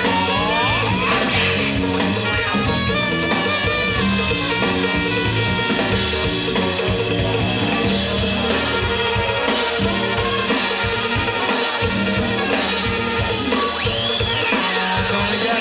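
Live band playing an instrumental passage: drum kit with congas and timbales driving a steady beat under a brass section of trumpet and saxophones.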